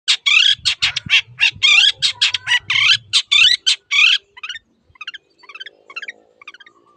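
Long-tailed shrike (cendet) singing in full voice: about four seconds of loud, harsh, rapid chattering notes, then softer, scattered short chirps.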